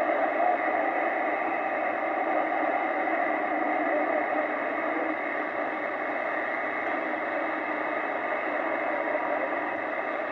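Static hiss from a vintage Lafayette HB-600 CB radio's receiver as the channel selector is stepped through empty channels. Only band noise comes through, with no station heard.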